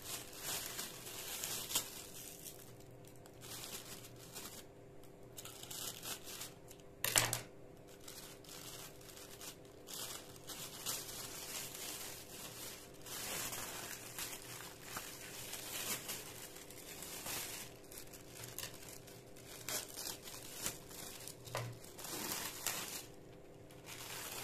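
Plastic oven bags crinkling and tearing as they are cut with scissors and peeled open by hand, in irregular rustles. One sharp click comes about seven seconds in.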